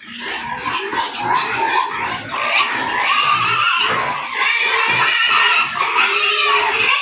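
Domestic pigs calling, a rough, continuous din that grows louder and denser about three seconds in.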